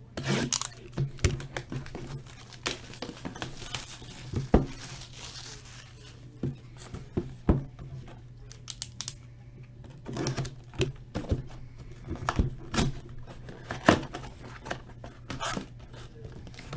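Plastic wrap on a sealed box of trading cards crinkling and tearing as it is unwrapped and opened, with scattered sharp clicks and taps as the box and cards are handled. A steady low hum runs underneath.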